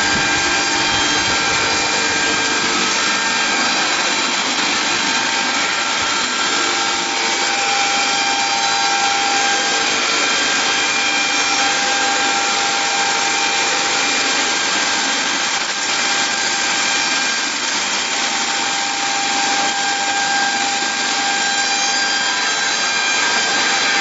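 Portable chainsaw mill running steadily, its chain sawing through wood: a steady whine over a harsh, dense noise with a slight dip about two-thirds of the way through.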